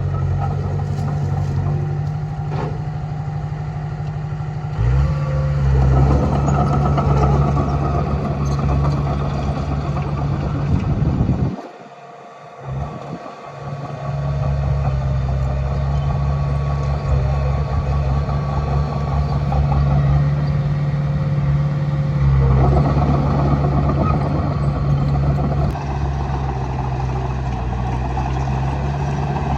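Komatsu D20A bulldozer's diesel engine running steadily, getting louder and heavier under load about five seconds in and again after about twenty-two seconds as it pushes soil. The sound drops away abruptly for about two seconds near the middle.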